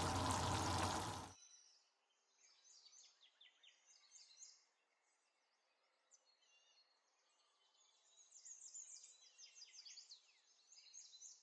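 Steady hiss of a creamy mushroom sauce bubbling in a frying pan, cutting off suddenly about a second in. Then faint, high bird chirps: many quick downward-sliding notes that grow busier near the end.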